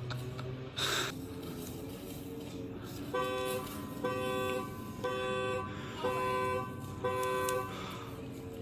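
Audi's car alarm going off: the horn honks in five evenly spaced blasts, about one a second, starting about three seconds in. A short burst of noise comes about a second in.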